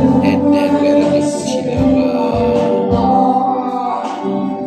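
Live band playing a song, with a voice singing over the music and a recurring low beat.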